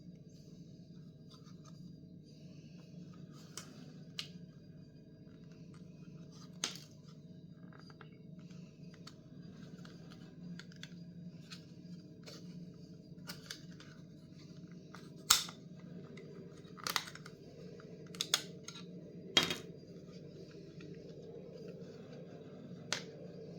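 Packaging and parts being handled: scattered light clicks and scratches, with a few sharp snaps past the middle, over a steady low hum.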